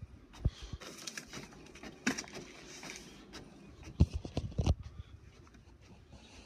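Footfalls and handling noise from a phone being carried while walking over carpet, with a rustle about two seconds in and a cluster of louder thumps about four seconds in.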